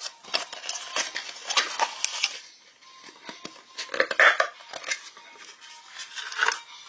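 Crinkling and rustling of a thin plastic wrapper being handled and pulled open around a small plastic toy, in irregular crackles that are loudest about four seconds in.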